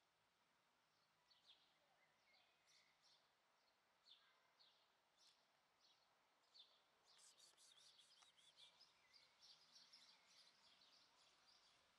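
Faint small birds chirping over quiet room-less ambience, the chirps scattered at first and turning into a busy, rapid twittering a little past halfway.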